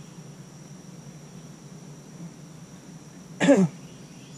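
A short, single cough-like vocal sound from a man about three and a half seconds in, over a steady high insect drone of crickets.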